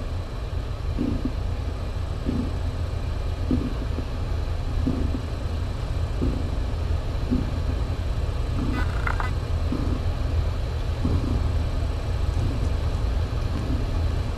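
A domestic cat purring: a steady low rumble that swells in a slow rhythm about once every second or so with each breath. About nine seconds in, a kitten gives one short, high mew.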